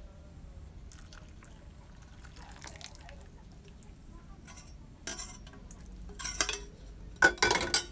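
Coconut milk poured in short splashing pours from a metal bowl into a stainless steel bowl of rice flour. The pours come about five, six and seven seconds in, and the last is the loudest.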